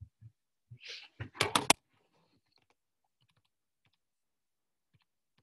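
A handheld calculator being picked up and handled on a desk. A few soft knocks and a brief rustle lead into a quick run of sharp clicks about a second and a half in, followed by faint, scattered taps of buttons being pressed.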